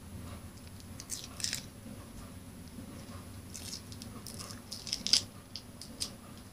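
Crinkling and crunching of candy being bitten and handled in its wrapper, in short clusters of crackles about a second in and again from about three and a half to five seconds in.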